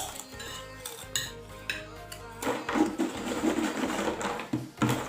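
A spoon and fork clinking and scraping against a plate while eating, with a busier run of clinks and scrapes in the second half.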